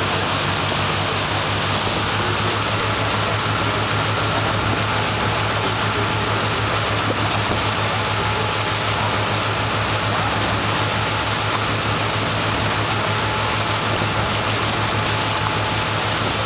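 Motor launch under way at steady speed: a constant low engine hum beneath a loud, even rush of churning wake water and wind.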